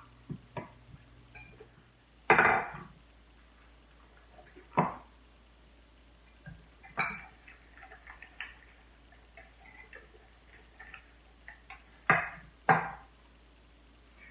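Metal utensil clinking and knocking against a glass measuring cup while stirring egg-and-cheese chaffle batter: many light ticks with a few louder knocks, the loudest about two seconds in.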